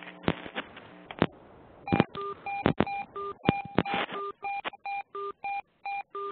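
A few sharp clicks, then from about two seconds in a quick run of short electronic beeps on a few different fixed pitches, with brief silent gaps between them.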